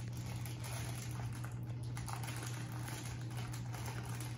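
A small plastic candy bag being handled and torn open at its tear strip by hand: soft crinkling and many small clicks, over a steady low hum.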